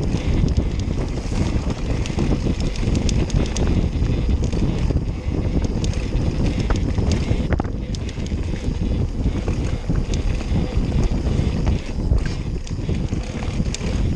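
Enduro mountain bike descending fast on a dirt trail: wind rushing over the microphone with steady tyre rumble, and many sharp rattling clicks from the bike as it runs over bumps.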